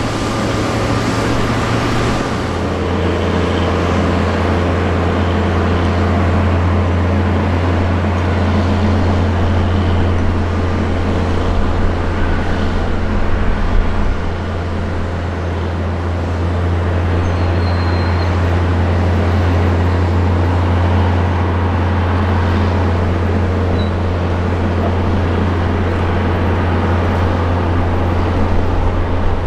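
Airbus A340-300's four CFM56-5C turbofan engines running steadily at taxi power as the airliner taxis past: a steady low hum under a broad jet rush.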